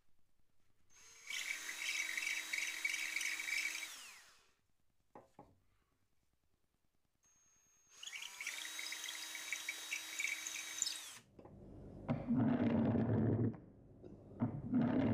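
Cordless drill spinning a 240-grit sandpaper-wrapped 6 mm dowel inside a pine wooden toy's 7 mm axle holes, honing them smooth, in two runs of about three seconds each with a steady whine. Near the end the wooden toy rolls on its wheels across a hard stone benchtop, a rougher rumbling.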